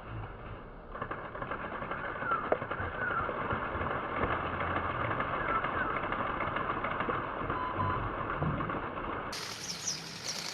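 Outdoor ambience: a steady dense hiss with a few short bird chirps, dull-sounding with no high end. The hiss thickens about a second in and thins near the end.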